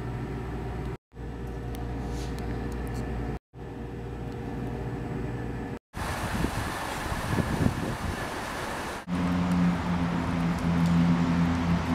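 Ambient sound chopped by hard cuts: a steady low hum in three short pieces, then street ambience with traffic noise, then, from about nine seconds in, a loud steady low drone.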